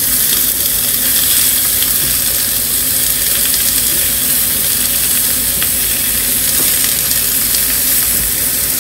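Slices of hanwoo beef sirloin sizzling in a hot frying pan as more raw slices are laid in. The hiss is steady, with a couple of faint clicks.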